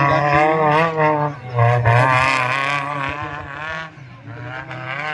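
Engine of a tubular-frame Suzuki Katana 4x4 off-road build revving hard as it climbs a steep dirt hill, its pitch rising and falling with the throttle, growing fainter after about three and a half seconds.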